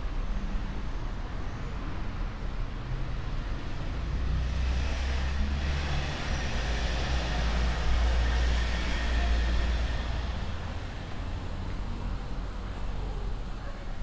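A road vehicle driving past on the street, its engine rumble and tyre hiss swelling to a peak about halfway through and then fading, over a steady low traffic hum.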